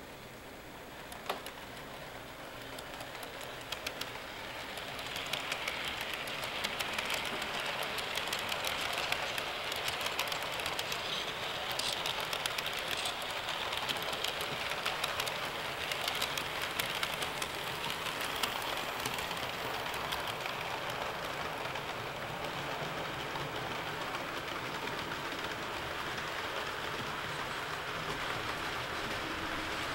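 HO scale model train running along the track: a steady whirring rolling noise that builds over the first few seconds, with light rapid clicks of the wheels over the rail joints through the first two-thirds.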